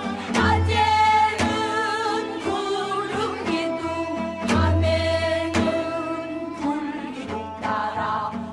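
A song: a singing voice with vibrato over instrumental accompaniment, marked by a percussive strike about once a second and a deep low pulse every few seconds.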